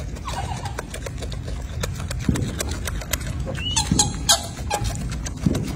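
Monkeys giving short, high, pitched calls: one near the start and a quick cluster a little past the middle. Scattered clicks and a steady low rumble run beneath them.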